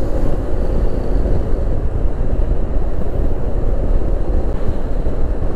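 Steady wind rush on the microphone mixed with the running noise of a Yamaha NMAX scooter riding at speed, with no sudden events.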